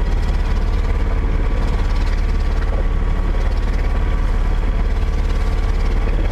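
Boat engine running steadily under way, a low, even drone with a fast regular pulse.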